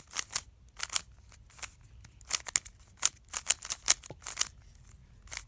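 Rubik's cube layers being twisted by hand: irregular runs of quick plastic clicks and clacks as the final turns of the solve are made.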